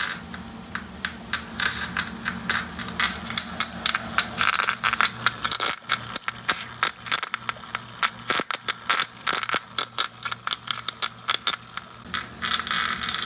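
Portable EDM machine's electrode sparking against a steel bolt under coolant water at full power: irregular sharp crackling snaps that grow denser as the cut goes on, over a steady low hum. Near the end the crackle turns into a denser continuous rasp.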